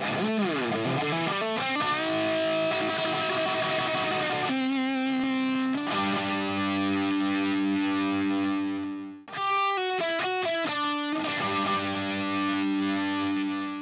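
Intro theme music led by distorted electric guitar: held chords opening with a bending, sliding note, a brief break about nine seconds in followed by a run of short separate notes, then chords again, fading out at the end.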